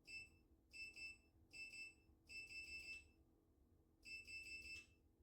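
High-pitched electronic beeping from an interactive laser training target: short beeps in quick runs of two to four, about five runs, with brief pauses between.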